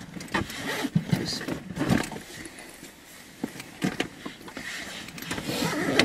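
Scattered clicks, knocks and rustling of things being handled inside a car, heard in the cabin.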